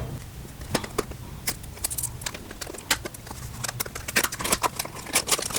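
Irregular light clicks and taps of small drone propellers being handled and knocked together.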